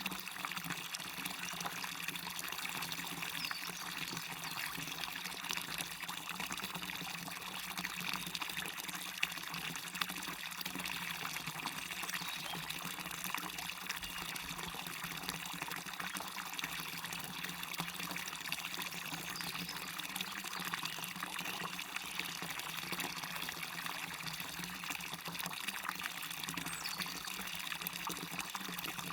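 Small waterfall splashing and trickling steadily into a stream, an even rushing of water.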